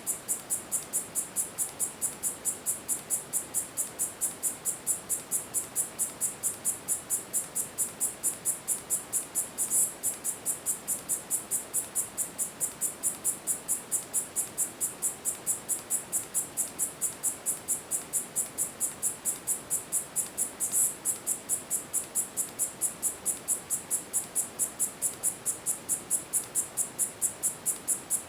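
Male Korean grass cicada (Tettigetta isshikii) calling: a steady, high-pitched train of short pulses, about four a second. Two brief louder bursts break in, about 10 and 21 seconds in.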